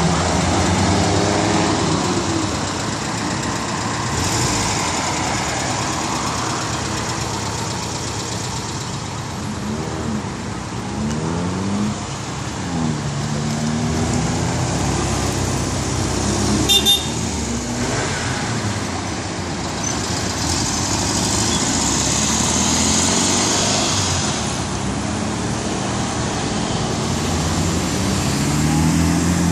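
Road traffic at an intersection: cars pulling away and driving through, their engines rising and falling in pitch over a steady tyre and traffic noise. A short double toot of a car horn comes about 17 seconds in.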